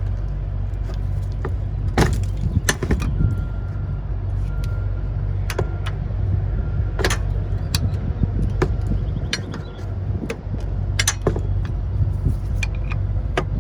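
Flat screwdriver clinking and scraping against a rear brake caliper and rotor as it is levered in to press the caliper piston back. The metal clicks come irregularly over a steady low hum.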